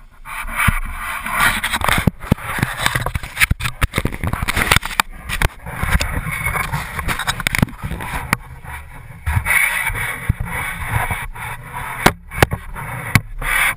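Camera handling noise: rough rustling and scraping against the microphone, broken by many irregular knocks and clunks as the camera is moved about and bumped.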